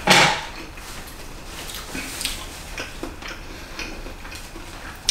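Forks and spoons lightly clicking against dinner plates, a few faint scattered clicks, after a short louder sound at the very start.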